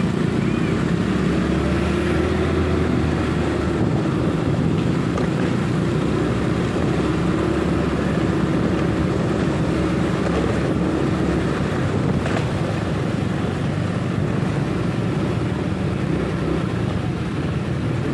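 Small motorcycle engines running steadily in a moving convoy, a continuous engine hum mixed with road noise.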